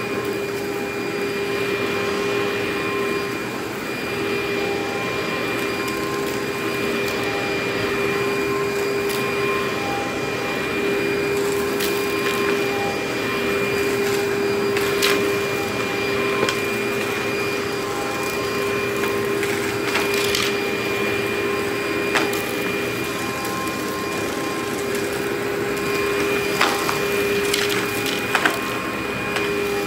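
Upright vacuum cleaner running steadily with a humming tone while picking up small dry debris, the bits clicking and crunching as they are sucked up through the nozzle, more of them in the second half.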